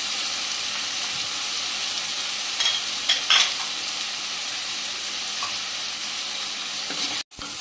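Dried jawla shrimp and onion-tomato masala sizzling in hot oil as they are stirred and sautéed in a pan, with a few sharp clicks from the stirring utensil about three seconds in. The sound breaks off for an instant near the end.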